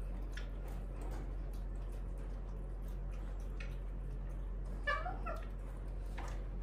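A young macaque gives one short, high, wavering squeal about five seconds in, over a steady low hum and a few faint clicks.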